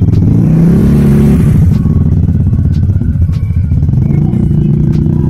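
Loud, bass-heavy music playing through a market stall's speaker, with a rustling hiss over it for the first couple of seconds.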